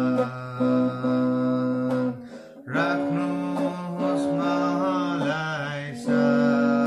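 Headless travel guitar playing a slow Nepali Christian worship hymn in held, sustained notes, with a man's voice singing along in long, wavering notes. There is a short break about two and a half seconds in.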